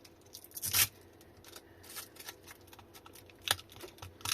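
Handling of a lithium-ion battery pack freshly pulled from its case: light clicks and rustles of plastic and adhesive pads, with a brief scraping rustle about a second in and a sharp click near the end.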